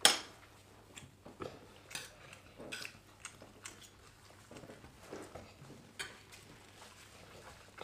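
Metal spoon and fork clinking and scraping against ceramic plates as people eat rice. A sharp clink right at the start is the loudest sound, followed by scattered lighter clicks and scrapes.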